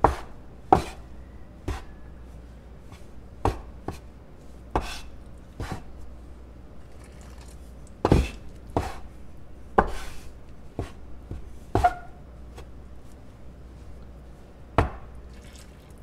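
A small spatula knocking and scraping on the countertop at irregular intervals, working hot water into a mound of flour and lard for tortilla dough.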